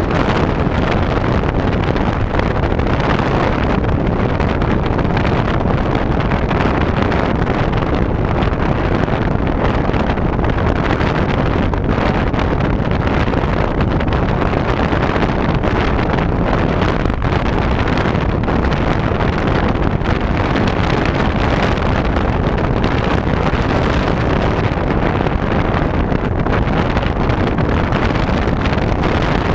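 Steady rush of wind on the onboard camera's microphone mixed with the RC model aeroplane's motor running at cruise, without a break.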